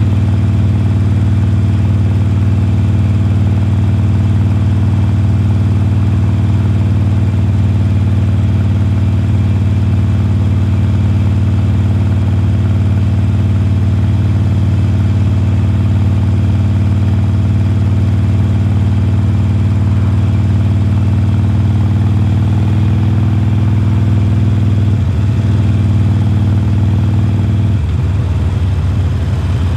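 2020 Harley-Davidson Forty-Eight's air-cooled V-twin engine, breathing through Khrome Werks slip-on mufflers, running steadily under way. Near the end the note changes and drops a little in level.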